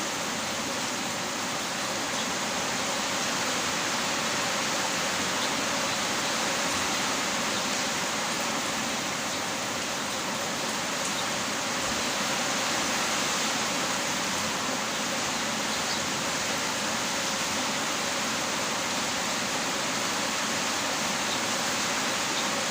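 Heavy rain falling steadily, an even hiss with no breaks and no thunder.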